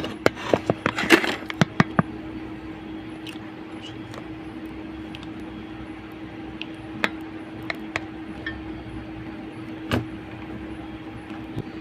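Small tools clicking and tapping against a phone board and the bench. A quick run of clicks comes at the start, then single taps every second or two, over a steady low electrical hum.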